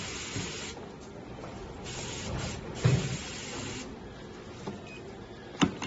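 Dental three-way air-water syringe spraying into a bucket in three short bursts of hiss. A thump about three seconds in and a sharp click near the end.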